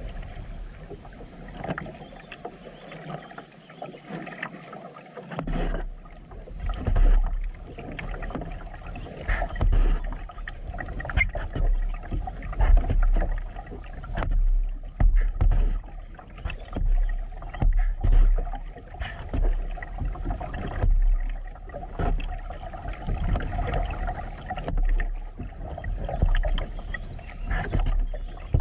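Kayak paddle strokes in calm creek water: the blade dips, pulls and drips in a steady rhythm, about one stroke every second and a half.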